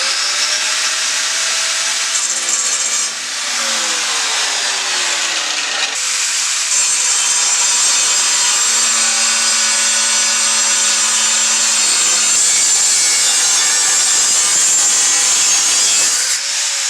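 Power tool making a long, continuous rough cut through a steel patch panel along a marked line. The steady rasping cut runs throughout, and the motor's pitch sags under load at times.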